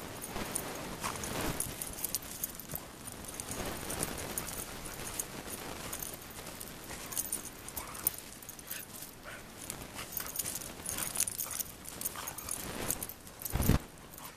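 Siberian husky playing in snow: scuffling and crunching of its paws in the snow with light metallic jingling, and a single thump near the end.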